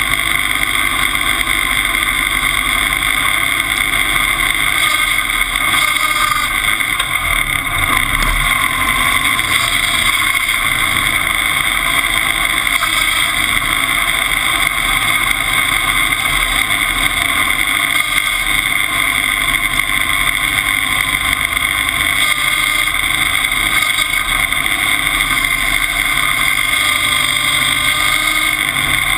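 Timberjack 201 log skidder's engine running steadily under load while it tows a dead Caterpillar D2 crawler.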